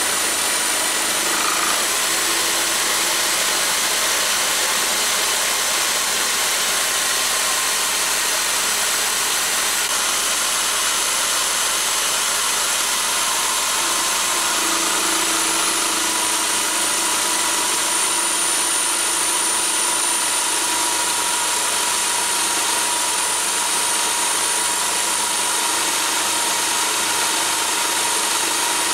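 Bosch electric drill running steadily under load, driving a 10 mm four-flute carbide end mill through a toolpost drill as it mills 316 stainless steel, with a steady high whine from the drill's motor.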